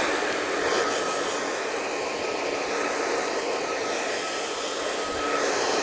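Handheld hair dryer running steadily as it blow-dries short hair: a constant rush of air with a faint motor whine.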